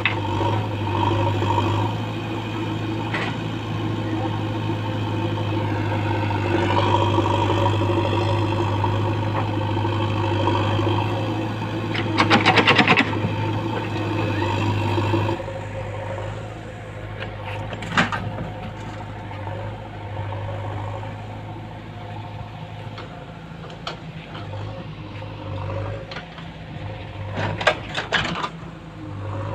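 Diesel engines of a JCB 3DX backhoe loader and a tractor running steadily as the backhoe digs soil and loads a tractor trolley. About 12 seconds in there is a loud rattling burst as a bucketful of soil and stones is tipped into the trolley. After a cut about halfway through, the engine sound is quieter, with a few sharp knocks.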